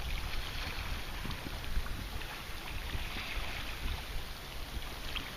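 Wind rumbling in gusts on the microphone, over a steady hiss of small waves lapping on the water.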